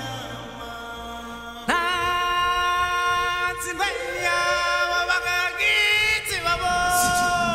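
Music of chanted singing: a strong solo voice comes in about two seconds in and holds long notes over softer choir-like voices.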